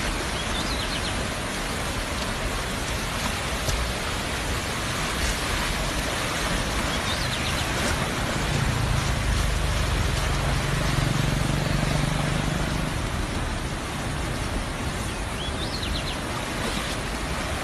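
Fast-flowing river floodwater rushing past a bank as a steady, even rushing noise. A low hum joins in for a few seconds in the middle.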